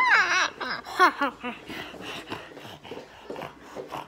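Wookiee growl from an electronic Chewbacca mask: a wavering, high-pitched call right at the start and another about a second in, followed by softer short breathy sounds.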